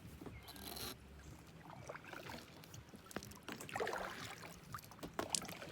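Kayak on the water: paddle splashes and dripping water with a few light knocks against the hull, a short splash near the start and a fuller one about four seconds in.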